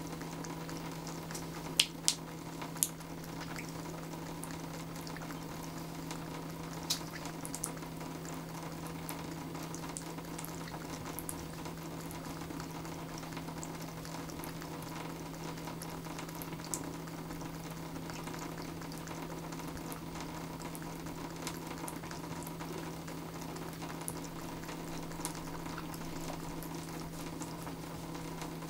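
Thin stream of water running from a bathtub faucet and splashing onto the tub floor: a steady hiss with a low, even hum beneath it. A few sharp ticks cut through it, clustered about two to three seconds in and again around seven seconds.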